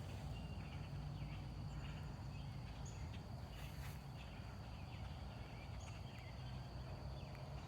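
Birds chirping in short, scattered calls over a steady high insect drone and a low wind-like rumble.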